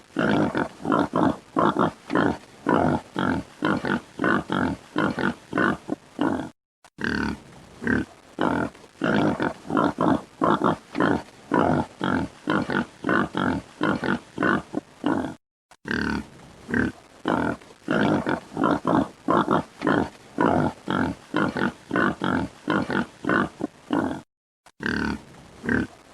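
Boar grunting in a fast, steady string of short grunts, about three a second, broken by a brief silence about every nine seconds.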